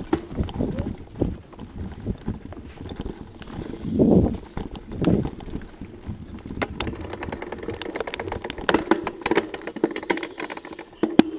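Irregular knocks and rattles over a low rumble from travel along a rutted dirt forest track, with two heavier thuds about four and five seconds in.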